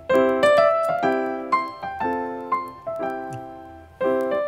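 Background piano music: notes and chords struck in a steady rhythm.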